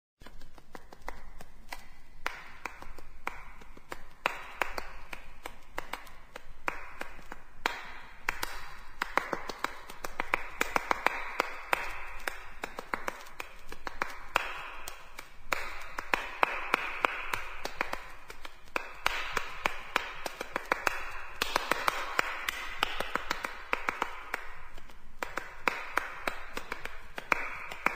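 A dense, irregular run of sharp clicks and taps over a hiss that swells and fades in waves every few seconds.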